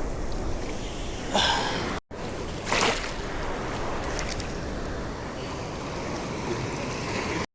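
Steady wash of surf on the beach with wind on the microphone. Two short louder bursts come about one and a half and three seconds in, and the sound drops out briefly twice.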